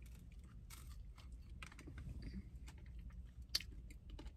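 Faint chewing of a donut: a string of small, irregular mouth clicks, with one sharper click about three and a half seconds in.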